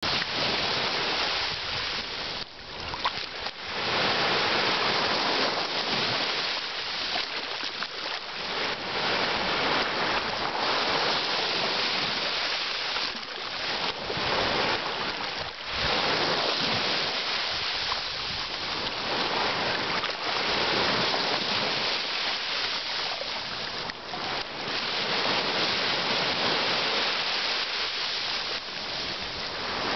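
Small waves washing in over a sandy shore in the shallows: a continuous rushing wash of water that swells and eases, with brief lulls between surges.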